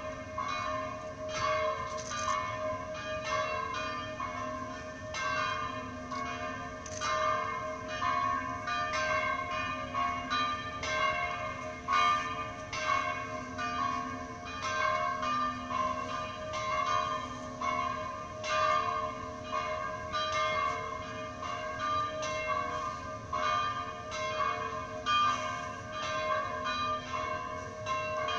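Church bells ringing without pause, many strikes in quick irregular succession with their tones ringing on over one another.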